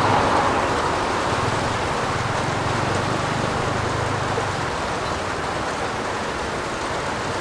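Steady heavy rain falling on a roof, an even hiss, with a faint low rumble through the middle.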